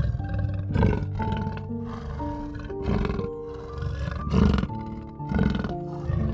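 Big cat roaring repeatedly in rough calls a second or so apart, over gentle background music with steady sustained notes.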